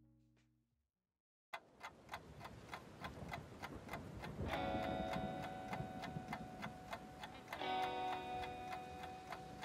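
Background music: after a short silence a new track starts about a second and a half in with a steady clock-like ticking beat of a few ticks a second, joined about four and a half seconds in by held chords.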